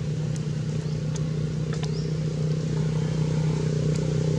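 Steady low drone of an engine running, growing a little louder near the end, with a few faint brief clicks over it.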